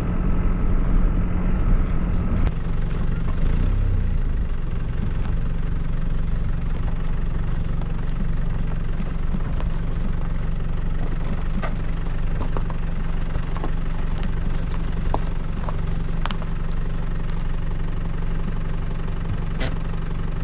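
Vehicle engine running steadily as it drives along a rough dirt track, heard from inside the cab as a low drone with small rattles and knocks over it. The sound cuts off suddenly at the end.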